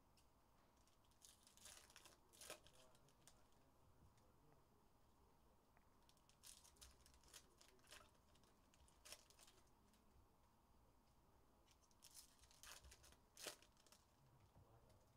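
Faint rustling and tearing of foil trading-card pack wrappers as packs are ripped open and the cards handled, in three short clusters: about two seconds in, around the middle, and near the end.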